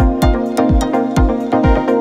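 Electronic dance music with a deep, pitch-dropping kick drum about twice a second, sharp hi-hat ticks and steady synth tones.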